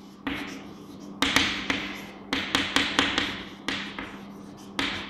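Chalk writing on a chalkboard: an irregular string of sharp taps, each trailing off into a short scratchy stroke.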